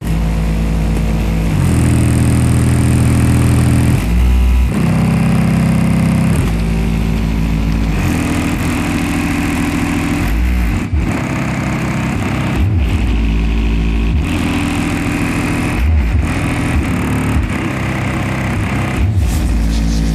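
Bass-heavy music played loud through a 12-inch Mofo subwoofer in a ported box tuned to 32 Hz, driven by a Hifonics BRZ2100 amplifier. Deep bass notes change every second or two.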